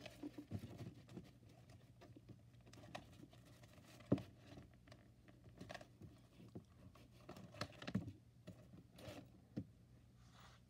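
Spiral-bound notebooks being handled on a wooden desk: soft paper rustles and light taps, with a sharper knock about four seconds in and another near eight seconds. A faint steady low hum runs underneath.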